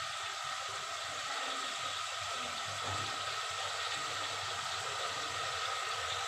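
Chicken pieces frying in an aluminium pot on a gas burner, a steady sizzle as they cook in the water and oil they have released.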